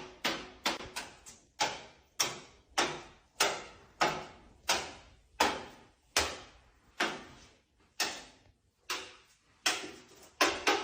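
A steady run of sharp knocks or taps, about three a second at first and slowing to about two a second, each with a short ringing tail.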